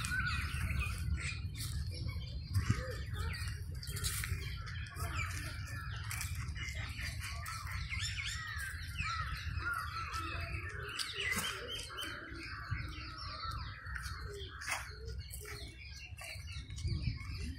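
Outdoor bird chorus: many birds chirping and calling in quick, overlapping phrases over a steady low rumble.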